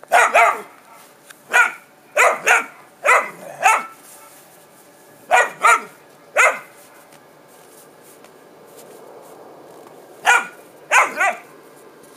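A three-month-old mixed-breed puppy gives short, sharp play barks. There are about a dozen, in quick groups of one to three, with a pause of several seconds before a last few near the end.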